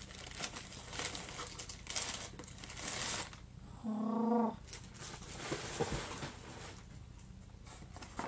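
Paper and cardboard packaging rustling and crinkling as a subscription box is unpacked by hand, then a short steady-pitched vocal sound about four seconds in. A few lighter handling noises follow.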